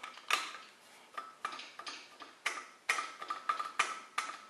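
Irregular light metallic clicks and taps, each with a short ring, from hand work on the bent-wire timing pointer and degree-wheel setup at the front of a small-block Chevy.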